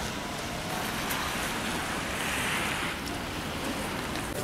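Wind on the camera microphone, a choppy low rumble under a steady outdoor hiss that swells for a second or two in the middle and fades again.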